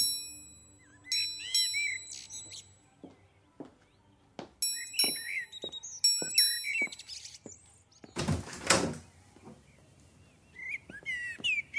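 Radio-drama sound effects: birds chirping, footsteps walking at an even pace, then a door opening about eight seconds in.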